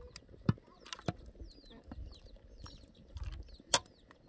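Small birds chirping over and over in short falling calls, with three sharp knocks, the loudest near the end.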